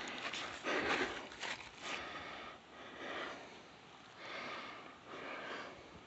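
A person breathing heavily and close to the microphone, in soft, noisy breaths about once a second.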